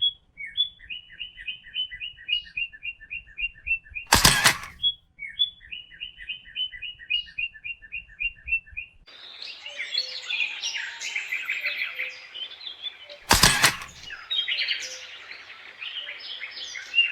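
Cartoon bird-like chirping sound effect: quick chirps at about four a second, twice in a run, each run cut by a short, very loud burst. Then a denser, more distorted layered version of the chirping, with another loud burst partway through.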